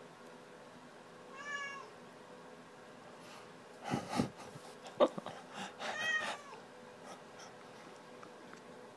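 Black house cat meowing twice, short calls a few seconds apart, with scuffs and sharp knocks between them as it clambers from a stepladder up against a wooden shelf; the loudest sound is a single sharp knock about halfway through.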